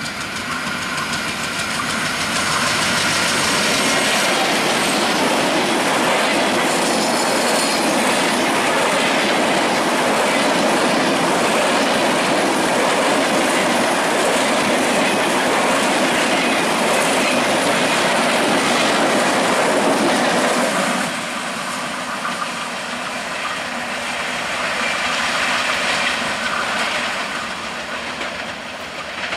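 Diesel-hauled express passenger train passing close by at speed. The locomotive draws near, then the coaches run past with a loud, steady rumble and wheel clatter on the rails. About two-thirds of the way through, the sound drops suddenly as the last coach passes, and it fades as the train moves away.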